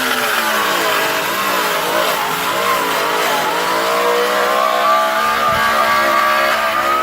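A power cutting tool's motor runs loud and steady through car body steel, its pitch sagging and recovering as the cut loads it.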